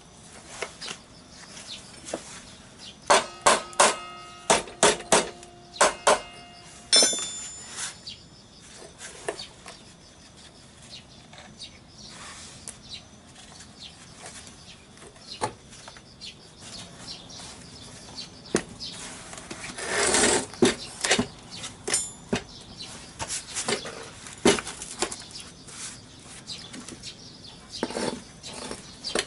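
Hand work on a scooter's engine and rear wheel unit: a quick run of about a dozen sharp metal strikes that ring, a few seconds in, followed by scattered knocks, clinks and a scraping rustle as the unit and tools are handled.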